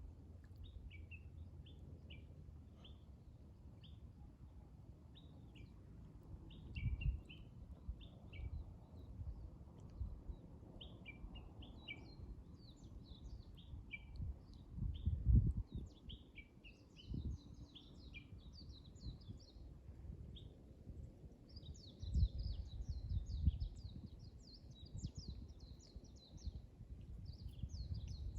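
Small songbirds chirping in short, separate notes, turning into dense, rapid twittering in the second half. There are a few low bumps and rumbles, the loudest about halfway through.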